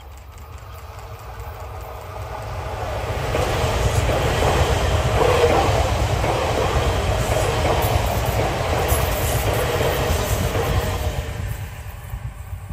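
E3 series Shinkansen train passing by on conventional tracks: its running noise builds as it approaches, stays loud for about seven seconds while the cars go past, then fades away.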